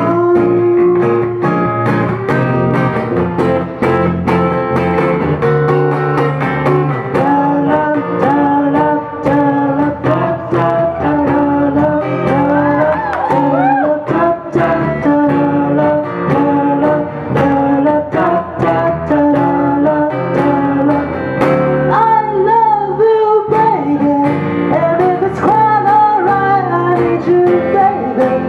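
A solo voice singing a slow song to an unplugged acoustic guitar, which is plucked and strummed throughout.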